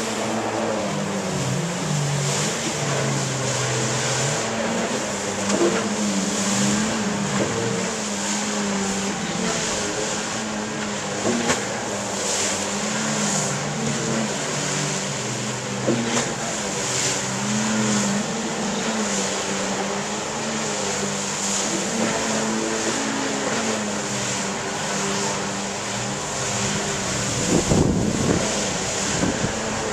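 Jet ski engines running on the river, their pitch rising and falling as they rev and pass, with a louder surge of engine and water noise near the end.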